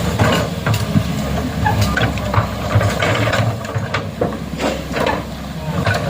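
A heavy vehicle's engine running steadily, with frequent sharp knocks and clatters over it.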